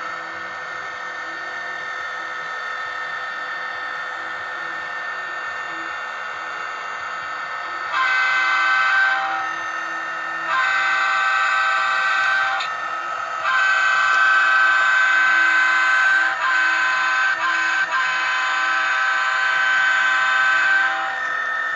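MRC sound decoder in a Bachmann SD40-2 model locomotive playing a steady diesel engine sound through its small speaker. About eight seconds in it sounds the horn in three blasts: a short one, a longer one, then one long blast.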